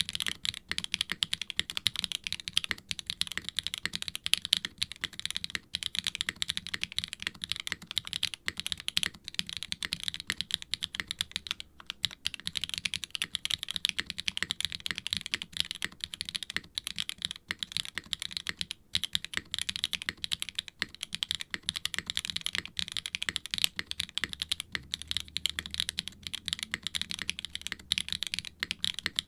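Fast continuous typing on a mechanical keyboard with Swagkeys Ghost Dragon linear switches (POK top housing, nylon bottom housing, POM stem) in a silicone-cased HIBI June with an FR4 plate and GMK ABS keycaps: crisp, bright, clacky keystrokes, with brief pauses around twelve and nineteen seconds in.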